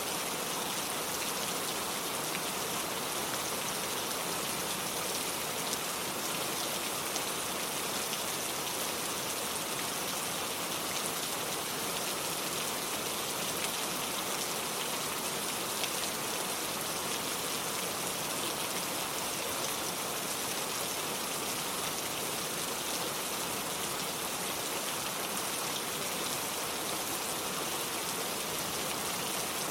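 Steady rain falling, with a dense patter of drops on hard surfaces.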